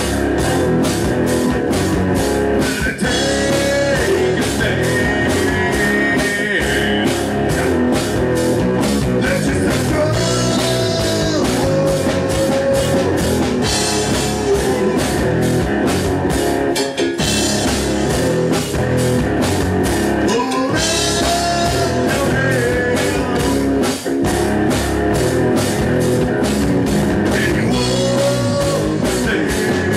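Live punk rock band playing: electric guitars, bass and a drum kit keeping a fast, steady beat, with a man singing in phrases over it.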